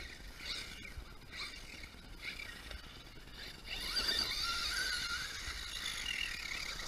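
Electric RC car's motor and geared drivetrain whining, the pitch rising as it speeds up: short bursts at first, then a longer run starting a little past halfway.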